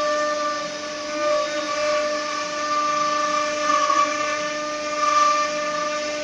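Multi-spindle 4-axis CNC wood router running: its row of high-speed spindles gives a steady, layered whine over a noise of cutting, swelling briefly a few times as the cutters work the wooden workpieces on the rotary axes.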